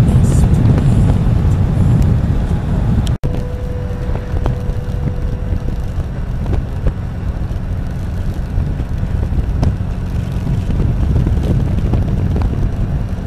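Trike motorcycle engine running at road speed with road noise, recorded on board while riding. About three seconds in the sound cuts out for an instant, then resumes as a slightly quieter, steady engine drone.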